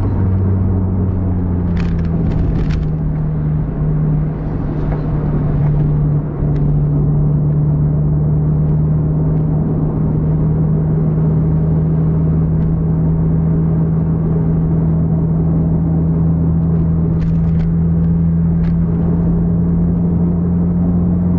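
A car's engine and tyres droning steadily inside the cabin while cruising at high speed, with a small step in engine pitch about six seconds in. A few short clicks come about two seconds in and again later on.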